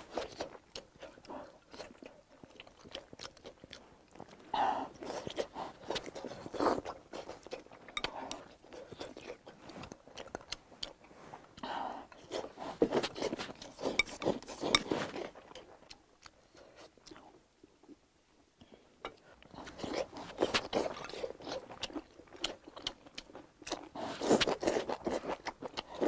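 A person eating rice and vegetables from a ceramic bowl with chopsticks, close up: chewing in several bursts, with light clicks of the chopsticks against the bowl.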